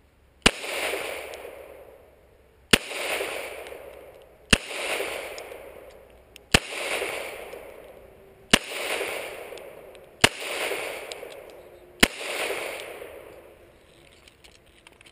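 Seven shots from a Glock 17 9mm pistol, fired one at a time about two seconds apart. Each sharp report trails off over about a second and a half.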